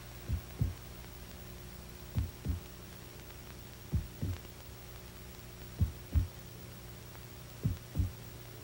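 Slow heartbeat sound effect, a double lub-dub thump about every two seconds, five times, over a steady low electronic hum.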